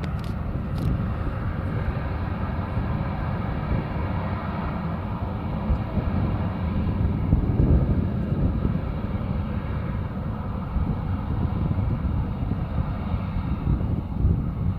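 Boeing 737 jet engines running steadily: a low rumble with a faint whine, neither rising nor falling.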